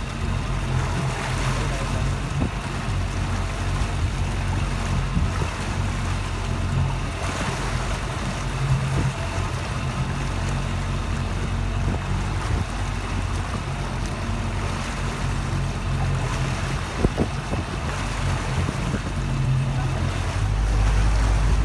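Boat under way: its engine runs steadily beneath the rush of water and wind buffeting the microphone. A deeper rumble swells near the end.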